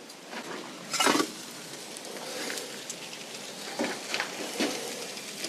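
Wood fire crackling and hissing in the vault of a brick Russian stove, with a loud crack about a second in and a few more sharp crackles near the four-second mark.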